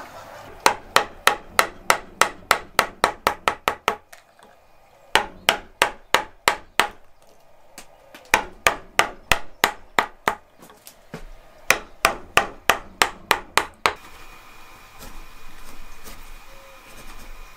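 A mallet striking a chisel's handle, driving the blade into a wooden log: quick runs of sharp blows at about four a second, broken by short pauses. Near the end the blows stop and a gouge pushed by hand shaves the wood with a softer, steady scraping.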